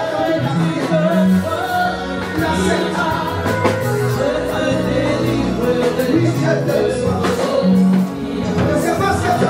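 Live gospel worship music: a woman singing over band accompaniment with a steady beat.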